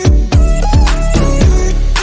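Background music with a steady beat: deep kick-drum hits that drop in pitch, under a melodic line.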